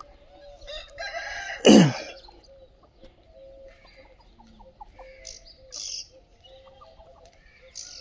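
A free-range desi rooster crows loudly about a second in, ending in a sharp falling note. Afterwards hens cluck softly and chicks cheep in short, high calls.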